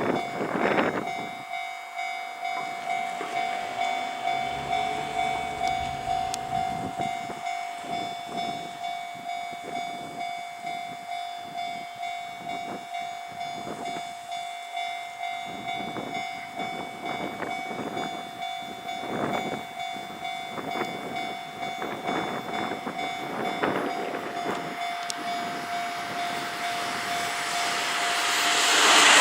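Japanese level-crossing warning bell ringing in a steady repeating rhythm. In the last few seconds the noise of an approaching train rises sharply and drowns it out.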